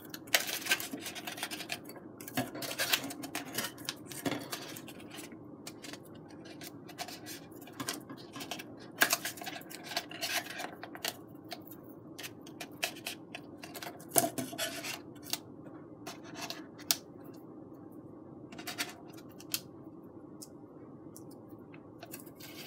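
Foam board being held and shifted by hand while hot glue sets: irregular small clicks and scratches over a faint steady hum.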